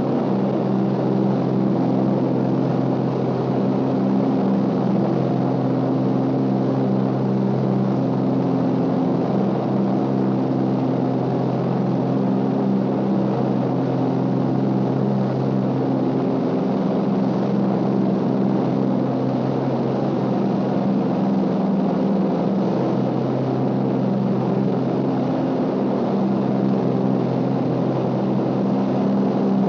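Steady drone of a Douglas DC-3's two radial engines and propellers heard from inside the cabin in cruise flight, with a slow rise-and-fall beat in the hum.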